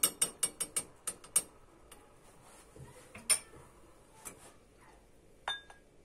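Metal spoon clinking against the inside of a small stainless steel pot as it stirs a melted butter and molasses mixture: a quick run of sharp clinks in the first second and a half, then a few single clinks, the last one ringing briefly.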